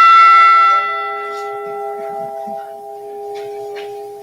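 One stroke of a bronze bell, struck just before and ringing on. Its higher tones die away within a couple of seconds while a low hum lingers. It is a memorial toll, one stroke for each lost crew member as the name is read.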